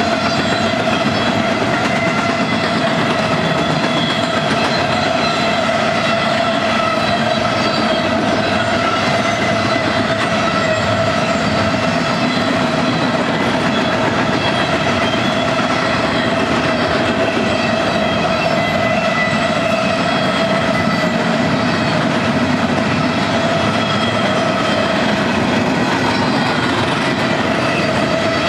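Freight cars rolling past on the near track, their wheels clattering steadily over the rail joints, with a steady high-pitched whine held over the whole passage.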